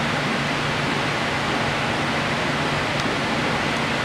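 Steady rushing hiss with a faint low hum underneath, and one faint click about three seconds in.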